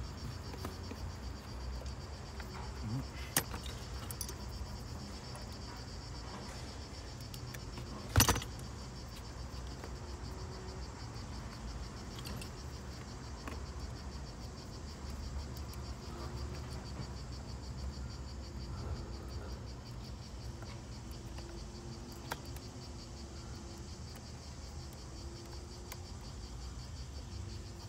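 Small clicks and rattles of a car's door wiring harness and plastic connectors being handled, with one sharp knock about eight seconds in. Under them runs a steady high buzz of insects and a low rumble.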